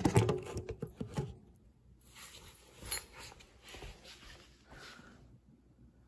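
Knocks and rubbing as a phone camera is handled and set down on a concrete floor, loudest in the first second, then a few faint scattered clicks.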